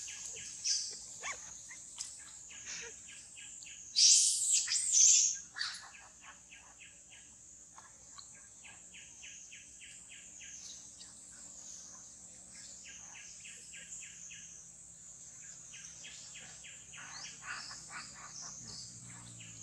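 Outdoor wildlife ambience: a steady high-pitched insect drone with repeated rapid chirping trills, and one louder high-pitched call about four seconds in, lasting over a second.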